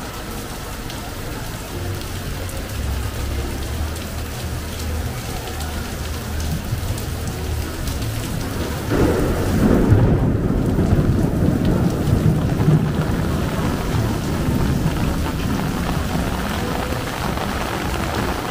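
Heavy rain falling steadily, with a low rumble of thunder that swells suddenly about halfway through and lingers for several seconds.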